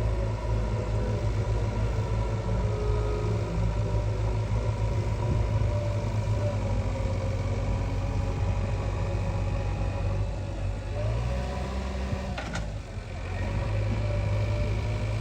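A heavy vehicle's diesel engine running steadily, its low note dipping and shifting briefly about eleven to thirteen seconds in before settling back.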